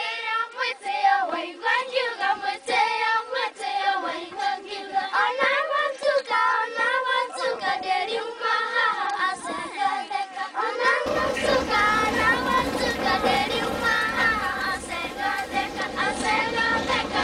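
Group of children singing together. About eleven seconds in, the low rumble of a vehicle travelling a rough road comes in underneath the singing.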